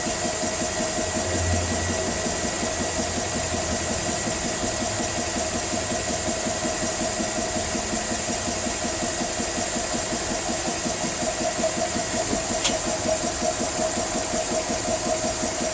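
GX CS3 portable PCP high-pressure compressor running steadily under load, filling an air rifle past 1,000 psi, with an even pumping pulse and a steady hum; this thing is quiet. A single short click sounds late on.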